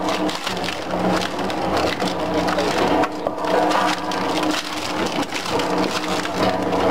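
Twin-shaft clawed shredder crushing branches, a dense, irregular crackling and snapping of splintering wood over a steady machine hum.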